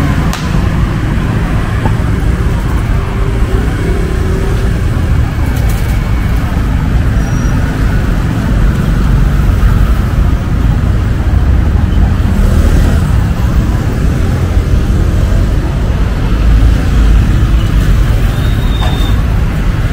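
City street traffic: a steady rumble of passing cars and motorbikes, with faint voices mixed in.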